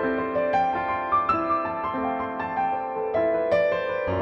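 Piano music: a melody of single notes struck about one or two a second over held chords, each note ringing and fading out.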